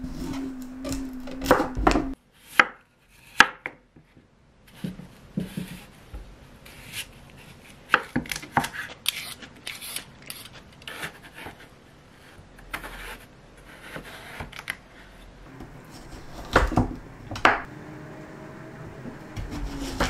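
Chef's knife cutting through a raw Korean radish and knocking on a wooden cutting board, in irregular strokes with a quieter stretch in the middle. A steady low tone sounds at first and cuts off about two seconds in.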